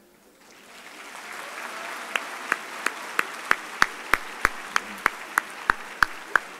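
Audience applauding in a large hall, the applause swelling after a brief silence. One person close by claps loudly and evenly, about three claps a second.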